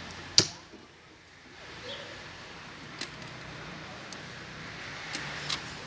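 A sharp plastic snap about half a second in as a Renault Clio 4 power-window switch module is pressed into its seat in the door trim, followed by a few light clicks.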